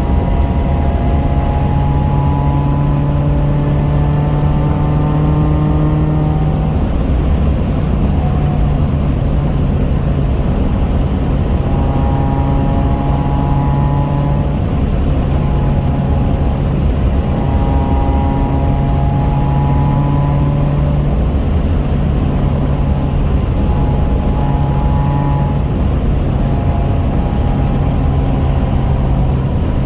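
F23A-swapped Honda four-cylinder engine running under way with road noise, its note climbing and dropping back several times.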